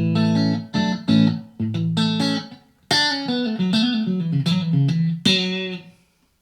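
Electric guitar through a Blackstar ID:Core 40 combo amp on its clean bright voice: a few strummed chords, then a short run of single notes ending on a note left to ring out.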